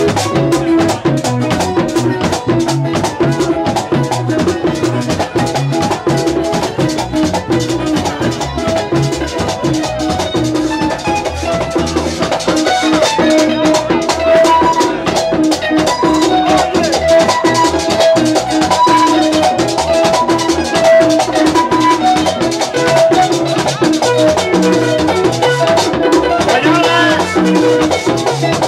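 Latin dance music with a steady drum beat, shaken rattle-type percussion and a melodic lead line.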